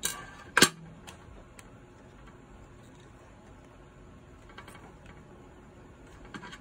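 Sharp metallic clicks from handling a folding multi-tool, two at the start, the second and louder one about half a second in. Scattered small ticks and clicks follow as the grip screws and panel of a metal airsoft pistol are worked loose.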